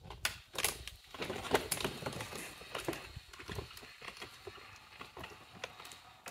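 Footsteps on a stone flagstone floor: irregular hard clicks and taps, busiest in the first few seconds and thinning out towards the end.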